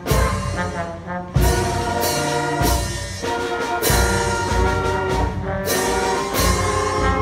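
School concert band playing: trombones, trumpets, saxophones and woodwinds holding chords over a strong drum beat.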